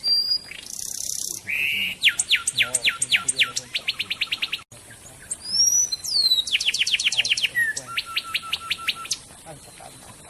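A songbird singing from a tutor (masteran) recording: two phrases of sharp down-slurred whistled notes that quicken into a rapid trill, with a short harsh rasp near the start.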